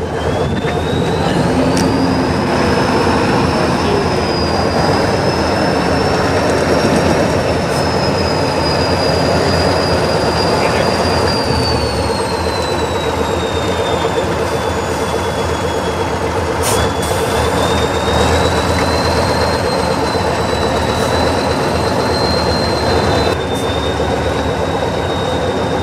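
A Tatra 815 trial truck's diesel engine runs loudly at low speed under load, with a high-pitched whine that slowly rises and falls. There is a sharp knock about two-thirds of the way through.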